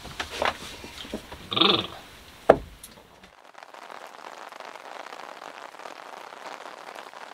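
A short high-pitched vocal sound and a sharp knock, then, from about three seconds in, a steady even hiss of pouring rain on the boat.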